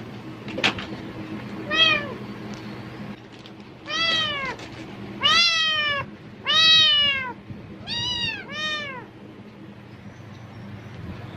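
Domestic cat meowing six times, each meow rising then falling in pitch, the middle ones loudest; a sharp click comes shortly before the first. The meows are a reaction to a rustling plastic bag, which the cat seems to take as a sign of food.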